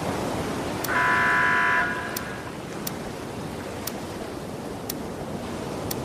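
Steady rush of surf and wind, with a single horn beep lasting about a second, starting about a second in and louder than the surf. Faint sharp clicks come roughly once a second.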